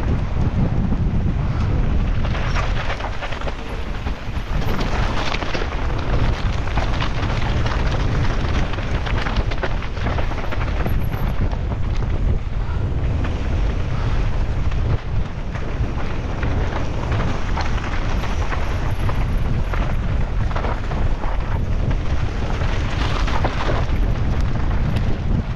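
Wind buffeting the microphone of a mountain bike rider's camera on a fast downhill run, over a steady rumble of tyres on rough ground. Many sharp knocks and rattles come from the bike clattering over the terrain.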